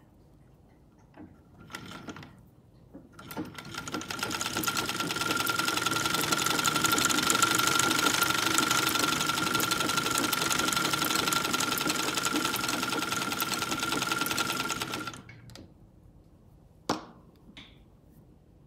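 Vintage Singer sewing machine spinning up to a fast, steady whir with a constant high whine, running for about eleven seconds, then stopping abruptly. A single sharp click follows near the end.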